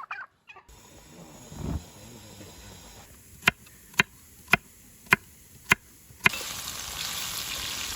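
Knife chopping on a cutting board: six sharp strokes about half a second apart. A steady hiss starts abruptly about six seconds in.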